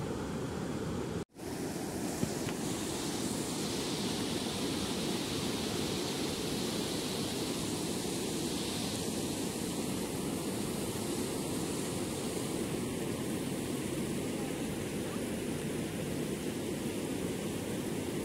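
Steady rushing of muddy floodwater in a flooded wadi flowing past a bridge, cutting out for an instant about a second in.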